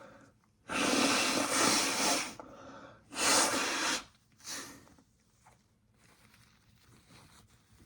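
A person's loud, hissing breaths through the nose and mouth during an attempt to bring on a sneeze: a long one of nearly two seconds, a second of about a second, then a short third.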